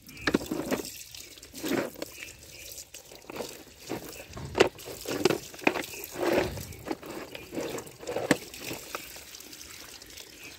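A stream of water from a pipe splashing over a plastic toy truck as it is rinsed and rubbed by hand. The splashing comes and goes unevenly, with a few sharp knocks, the loudest about halfway through.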